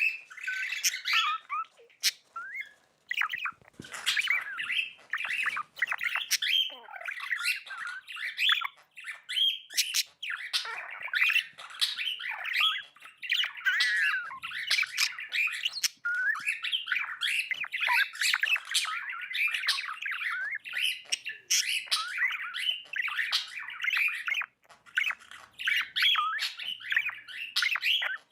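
Pet budgerigar (budgie) chattering and chirping without a break: a rapid, jumbled stream of squawky warbling notes with sharp clicks mixed in.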